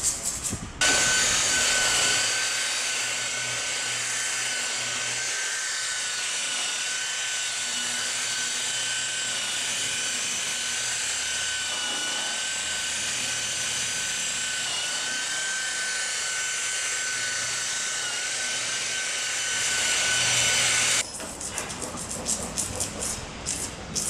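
A motor-driven machine running steadily for about twenty seconds, a high whine over a loud hiss, starting about a second in and cutting off suddenly near the end. Before and after it come quick, rhythmic rubbing strokes of a hand pad scrubbing painted metal.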